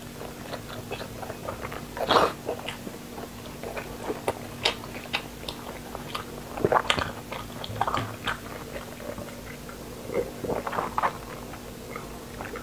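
A person chewing and biting braised meat close to the microphone: irregular wet mouth smacks and clicks, with a few louder bites, about two seconds in and again around seven seconds.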